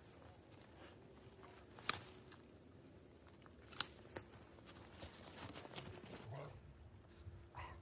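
Quiet footsteps through snow, faint and uneven, with two sharp clicks about two seconds apart.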